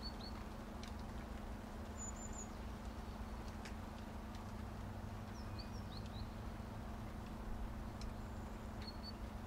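Steady rain hiss with a few sharp drip ticks, while small birds give short high chirps several times: a quick run near the start, higher notes about two seconds in, a few falling notes around the middle and a brief pair near the end.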